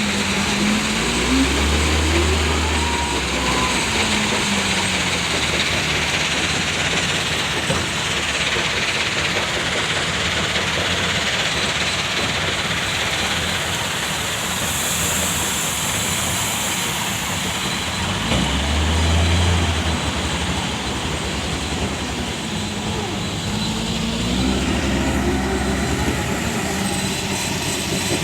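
Heavy truck's diesel engine labouring under a heavy load in low gear, its pitch rising and falling a few times as it revs and shifts, over a steady rumble and rattle of the truck on the road.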